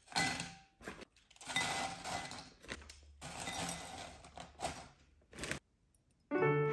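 Tortilla chips dropped by hand into a ceramic bowl, crackling and clattering against the bowl in several bursts. Piano music begins near the end.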